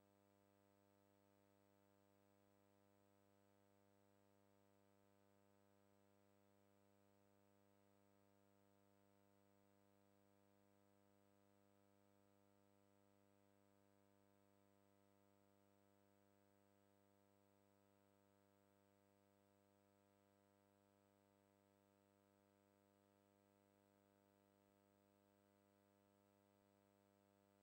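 Near silence: only a faint, steady hum with no change throughout.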